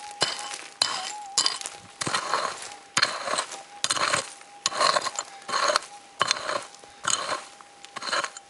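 Pick-mattock striking and scraping rocky, gravelly soil with sharp metallic clinks, about a dozen blows at roughly one every half second, digging down to a metal-detector target. A faint steady tone runs underneath, the metal detector's threshold hum.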